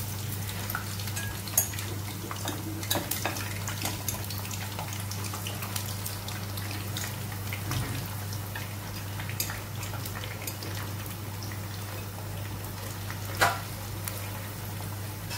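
Raw potato cubes frying in hot oil in a pan: a steady sizzle with scattered crackles and pops. A single sharp knock comes about 13 seconds in.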